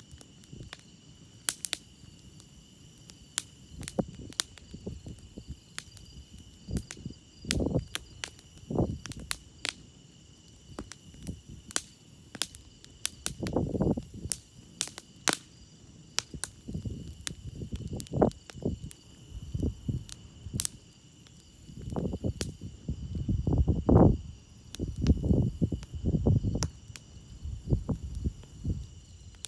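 Campfire crackling and popping, with sharp snaps scattered throughout and low rushing swells of burning, the strongest about halfway through and again in the last third. Crickets chirp steadily underneath.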